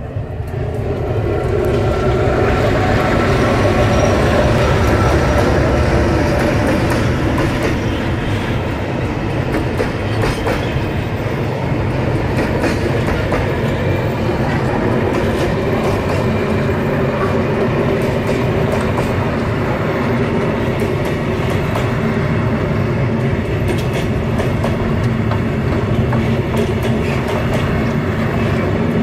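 Slow freight train passing close by: an EMD G16 diesel locomotive's engine swells in over the first few seconds and is loudest about five seconds in. Container flatcars then roll past steadily, their wheels clicking over the rail joints.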